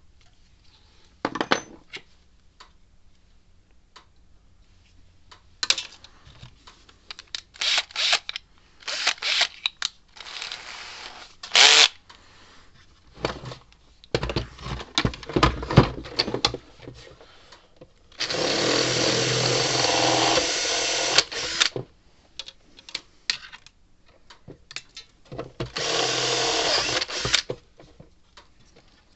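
Electric drill running in two steady bursts, one of about three and a half seconds and a shorter one near the end, while holes are drilled. Clicks and clatter from handling tools and parts come before them.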